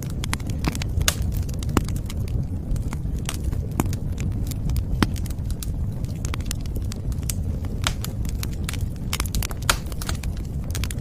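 Wood fire crackling, with frequent sharp pops and snaps at irregular intervals over a steady low rumble.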